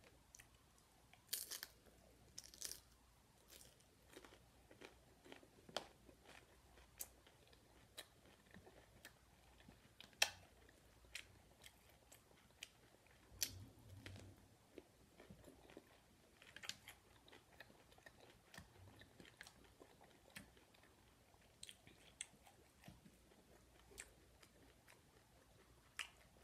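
A person chewing and biting into a taco and cucumber slices, close to the microphone: soft, faint mouth sounds with scattered crisp crunches and clicks.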